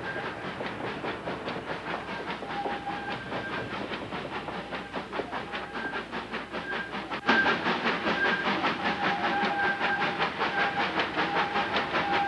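Steam locomotive working upgrade: a fast, even beat of exhaust and running noise, with short high squealing tones coming and going. It turns suddenly louder about seven seconds in.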